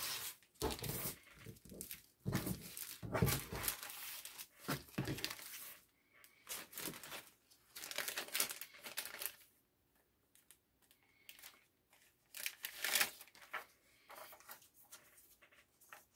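Clear plastic zip-top bags crinkling and being pulled open while transfer sheets are taken out. The rustling is busiest in the first six seconds, then comes in short scattered patches.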